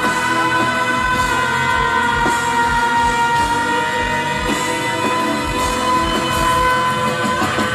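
Live rock band music: one long held note rises slightly, then stays level over a steady drum beat.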